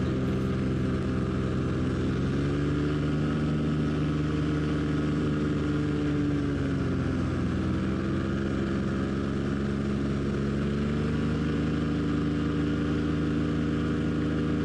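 Vittorazi Moster single-cylinder two-stroke paramotor engine running steadily in flight. Its pitch sags a little in the middle and picks up again.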